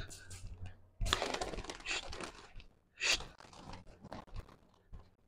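Wire cage full of pigeons carried by hand, with the cage rattling and the birds shuffling inside: irregular rustling and clicking, loudest in a burst about a second in and again about three seconds in.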